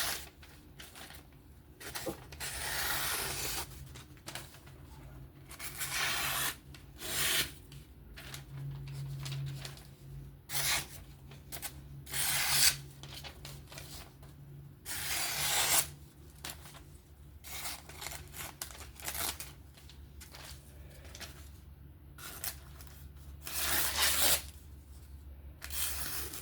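Freshly sharpened folding-knife blade slicing through paper in a series of separate strokes, an edge test after sharpening.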